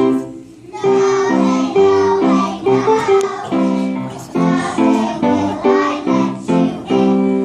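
Elementary-school children singing a song in chorus with instrumental accompaniment, the singing coming in about a second in.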